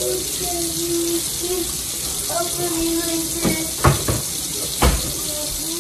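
Kitchen faucet running into the sink, a steady hiss of water, with a few sharp knocks a little past the middle.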